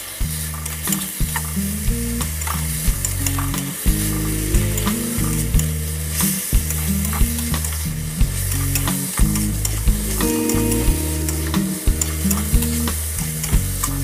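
Sliced bitter gourd, chilies and egg stir-frying over high heat in an aluminium wok: a steady sizzle, with the metal spatula scraping and clicking against the pan about once or twice a second. Low tones that shift in pitch in steps run underneath.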